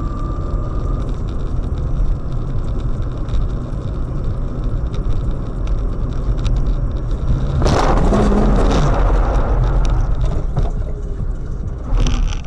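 Steady low road and engine rumble from inside a moving car. A sudden loud rushing burst comes about eight seconds in and lasts a second or so, and a shorter one comes near the end.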